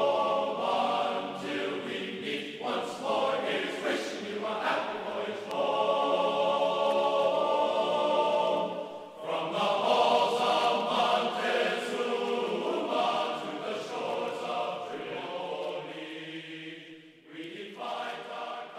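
Background music of held, choir-like singing, the chords changing every few seconds.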